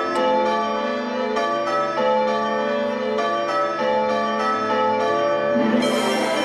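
Show music for a stage performance: a melody of bell-like chiming notes struck one after another, with a fuller band sound coming in near the end.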